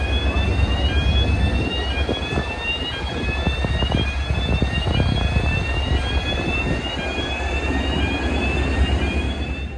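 Jet aircraft noise: a steady low rumble under a high whine that rises in pitch and starts over about every three-quarters of a second.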